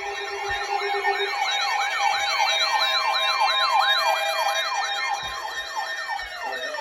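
Electronic siren yelping, with rapid rising-and-falling sweeps about three times a second, over a steady alert tone whose lower note drops out about a second in. Near the end a further siren sweep glides downward.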